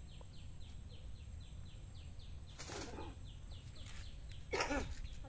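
A bird calling a steady series of short, falling chirps, about four a second. Two louder, harsher sounds break in about two and a half and four and a half seconds in, the second the loudest.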